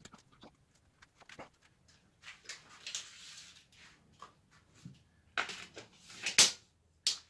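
Handling sounds around a chipboard panel: a scraping rub about three seconds in, then a run of sharp clicks and taps as a steel tape measure is pulled out and laid across the board, the loudest tap about six seconds in.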